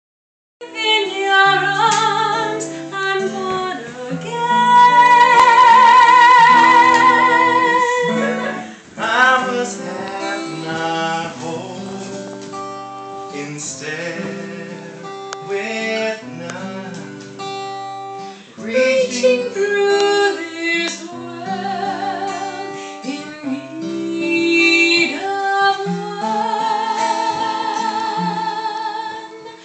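Acoustic guitar playing slow chords under a high singing voice with vibrato. The voice holds one long, loud note about five seconds in.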